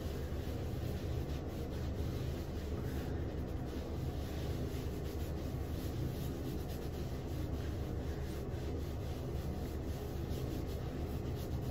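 A towel rubbed briskly over short, freshly washed wet hair to dry it: a continuous rubbing with no pauses.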